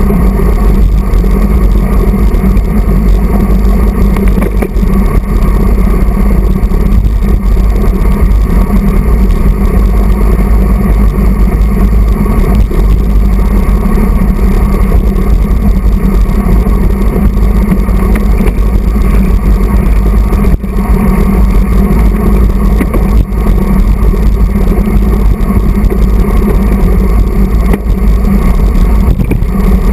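Wind rushing over the microphone of a handlebar-mounted camera on a road bike at racing speed: a loud, steady, deep rumble.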